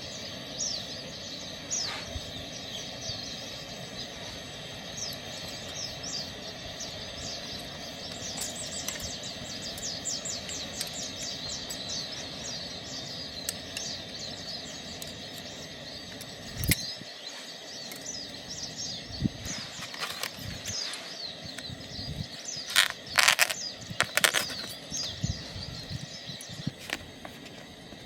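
Small birds chirping in a steady stream of short, quick calls over a constant low outdoor background, busiest early on. In the second half a few sharp knocks or clicks stand out, the loudest a quick cluster a little before the end.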